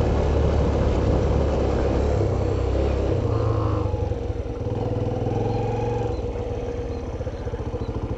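Motorcycle engine running while riding. The engine note drops about three seconds in as the bike slows, then it runs at low speed with an even pulse.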